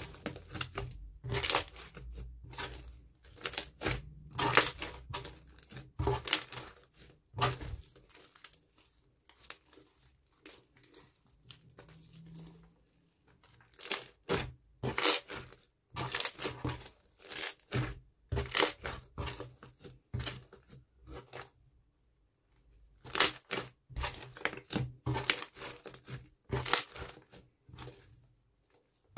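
Hands kneading, squeezing and stretching a large lump of blue slime studded with small beads, in irregular bursts of crackly, clicking sound. There are two short quiet pauses.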